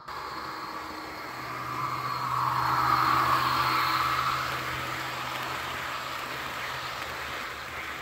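HO-scale model train cars rolling past on brass track: a running rattle of small metal wheels that swells as the coaches pass close and then eases off, over a steady low hum.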